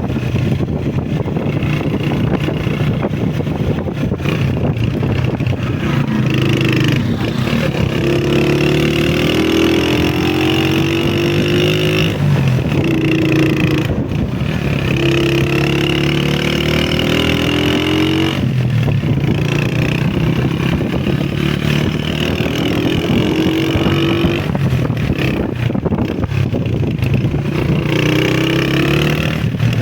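A Honda CG125 motorcycle's single-cylinder four-stroke engine running while riding. The revs climb and drop several times, as between gear changes.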